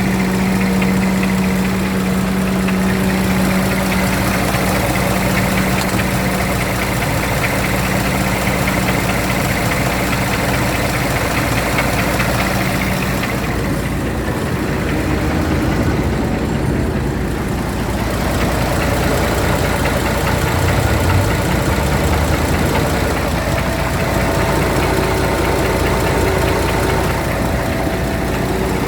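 Scania truck diesel engine with HPI unit-injector fuel system running with a knock from a worn camshaft: the unit-injector cam lobe of the sixth cylinder and its roller follower are pitted. The knock repeats once every two crankshaft revolutions, at camshaft speed.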